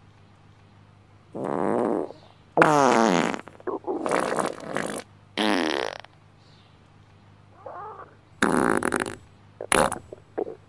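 A string of about six loud farts, each lasting under a second to about a second and a half, one of them about three seconds in sliding down in pitch.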